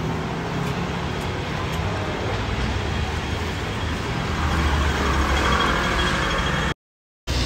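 City street traffic: a steady wash of passing cars and motor scooters, with one vehicle's low rumble swelling as it passes about five seconds in. The sound cuts out completely for about half a second near the end.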